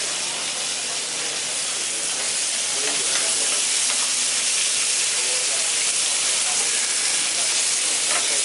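Meat and sausages sizzling steadily on a hot griddle, a little louder from about three seconds in.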